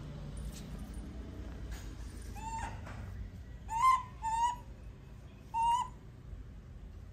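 Baby macaque cooing: four short, high calls, each rising slightly and then holding, in the middle of a few otherwise quiet seconds.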